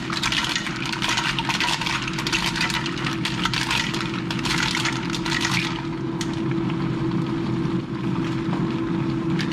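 Mussels going into a pot of softened onions, tomatoes and celery, the shells clattering and crackling densely for about the first six seconds before easing off. A steady low hum runs underneath.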